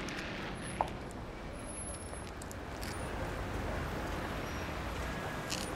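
City street traffic ambience: a steady hum of passing cars, with one short sharp click about a second in.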